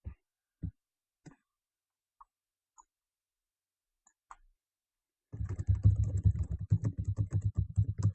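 A few light taps, then about five seconds in a fast, dense run of crackling and clicking as a trading-card box's packaging is handled and opened.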